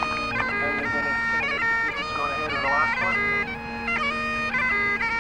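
Great Highland bagpipe playing a tune: a steady drone held throughout under the chanter's melody, which steps between notes with quick grace-note flourishes.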